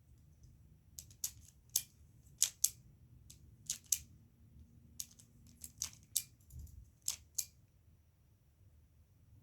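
Twisting puzzle turns on a Pyraminx-style triangle puzzle: a dozen or so sharp plastic clicks in irregular bursts, stopping near the end.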